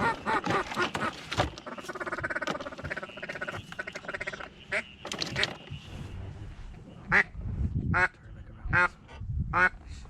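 Duck quacking: a fast run of chattering quacks about two seconds in, then single loud quacks about once a second near the end.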